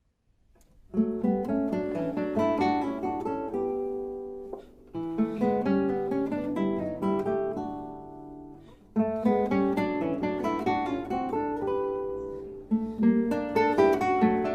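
Background music: gentle acoustic guitar, plucked notes ringing out in phrases. It comes in about a second in, and each new phrase starts roughly every four seconds.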